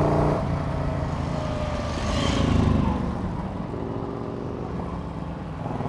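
Morgan 3 Wheeler's V-twin engine running as the car is driven at speed, its note falling about two seconds in and then settling.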